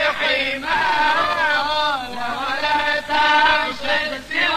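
Male voices chanting a Sufi muwashshah in Arabic in a long melismatic phrase, the pitch winding slowly up and down on held notes.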